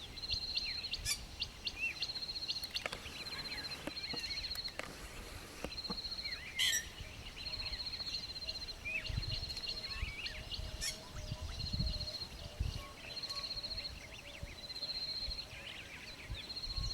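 Wild birds calling in bush: a high, rapid trill repeated about every second and a half, over scattered chirps and whistles from other birds, with one louder sharp call about six and a half seconds in.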